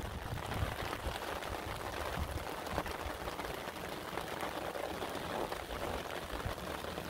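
Steady rain, with many small drop ticks hitting a van's awning overhead.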